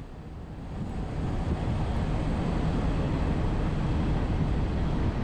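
Road and wind noise of a vehicle driving along a street, building over the first second or so and then steady.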